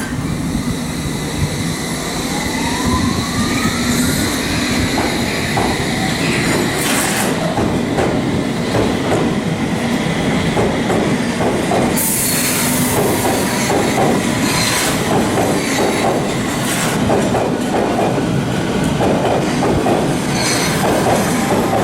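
Train moving through the station, its wheels clicking over rail joints in a steady rhythm and squealing with a high steady tone. A rising whine comes about two seconds in.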